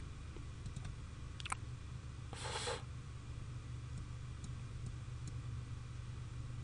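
Quiet room tone with a steady low hum, a few faint clicks, and a short soft hiss of noise about two and a half seconds in.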